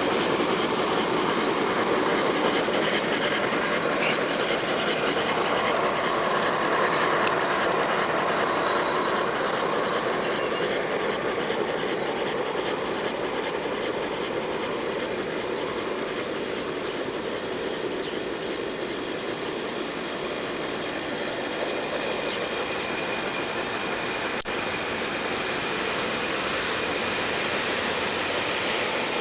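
Large-scale garden railway train rolling along its track, wheels clicking on the rails. It is loudest at first while the cars pass close by, then slowly grows fainter.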